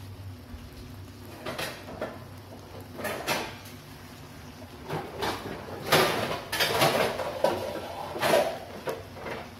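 Kitchen clatter: irregular knocks and rattles, like cookware or a cupboard being handled, a few at first and then a busier run in the second half.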